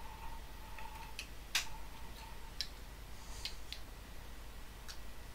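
Several light, scattered clicks and taps of small plastic parts being handled and fitted together: a speaker volume-control pod's circuit board and its plastic case. The loudest click comes about a second and a half in.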